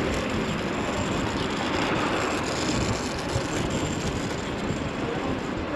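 Steady rush of wind buffeting the microphone, mixed with road noise, while riding an electric scooter.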